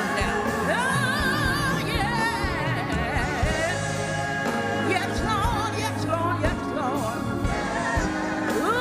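Gospel music with singing: wavering, held vocal lines over sustained accompaniment, playing steadily.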